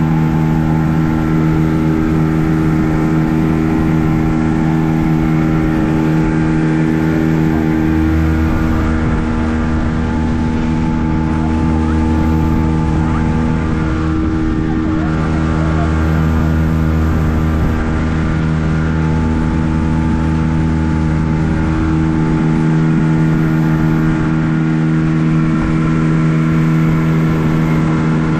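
Boat engine running steadily at an even pitch, with a constant hiss over it.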